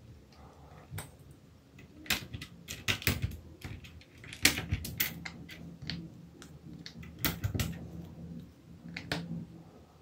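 Plastic keycaps being pried off a mechanical keyboard's Kailh Box Red switches with a wire keycap puller. The sound is sharp clicks and clacks in about four clusters as each cap pops free and is set down.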